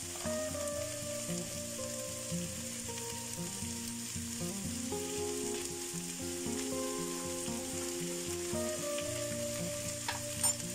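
Vegetables sizzling steadily as they fry in a kazan, under soft background music whose melody moves in slow, even steps. A few short clicks come near the end.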